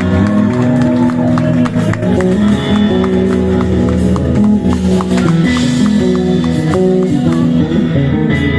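Live band playing an instrumental passage of a pop-rock song: guitars over bass, with percussion ticking out a steady beat.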